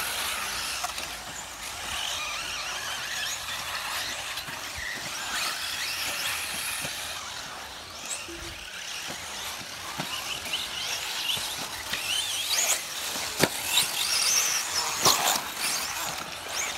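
Electric off-road RC buggies racing, their motors whining high and sliding up and down in pitch with the throttle, with a few sharp clacks.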